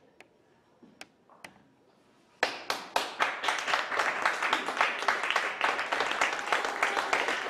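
A few faint clicks in near silence, then a theatre audience breaks into applause about two and a half seconds in: many hands clapping, steady and dense.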